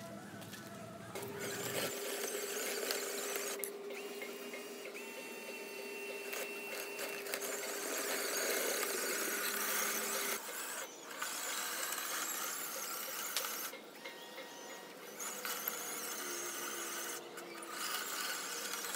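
Small electric motors and gearboxes of a remote-control model bulldozer whirring and grinding, stopping and starting again a few times.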